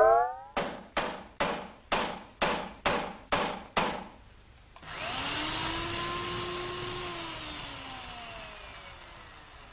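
Electronic sci-fi sound effects: eight evenly spaced pulses, about two a second, each dying away quickly. After a brief pause comes a steady whirring hum that slowly falls in pitch and fades, like a machine winding down.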